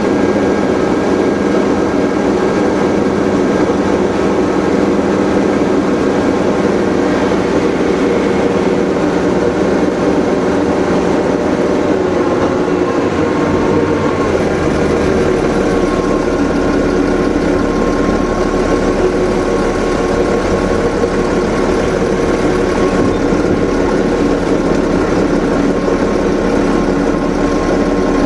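Vehicle engine running steadily under way, heard from inside the vehicle, with the engine note deepening about halfway through.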